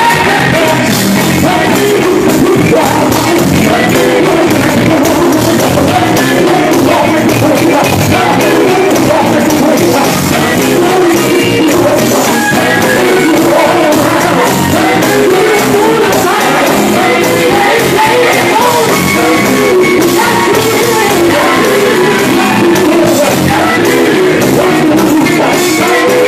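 Live gospel music: a male lead singer singing hard into a handheld microphone over a full band with drums, loud and without a break.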